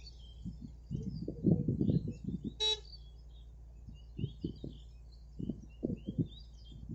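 Tracked hydraulic excavator running at a low idle, with two runs of dull knocks and thumps, the first about a second in and the second about four seconds in. A short horn toot sounds near the middle, and birds chirp.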